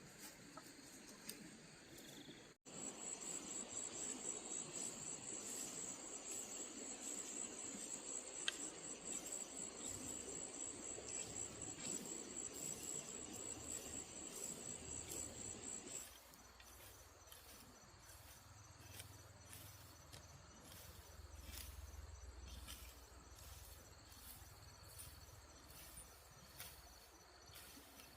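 Insects chirring: a steady, high-pitched pulsing trill that starts abruptly a couple of seconds in and cuts off about halfway through. After it, only fainter insect sound with a few light ticks remains.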